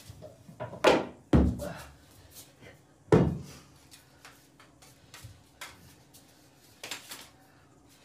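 A homemade barbell being shifted on the floor: a few heavy knocks and thuds, the loudest about a second in, a second and a half in, and about three seconds in, then lighter knocks.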